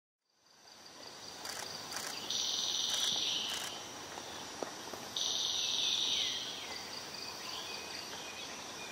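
Forest insects: a steady high-pitched insect tone throughout, with a louder, harsher insect buzz that starts abruptly twice, about two seconds in and about five seconds in, each lasting about a second.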